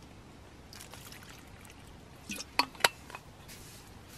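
Camp cooking sounds: liquid being stirred or poured, with a few sharp clicks about two and a half seconds in, the two loudest close together.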